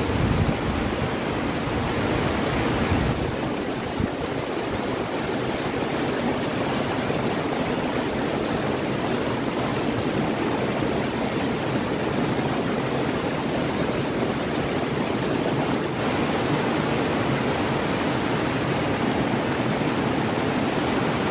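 River rapids rushing steadily over rocks: shallow white water running below a weir, a deeper rumble in the first three seconds.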